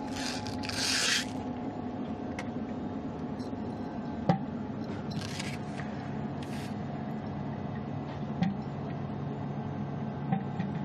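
Steady hum of the International Space Station's cabin fans and air-handling equipment. It carries a sharp click about four seconds in and a few short hisses.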